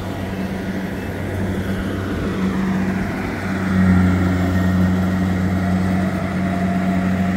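An engine running steadily at one pitch, growing louder about halfway through.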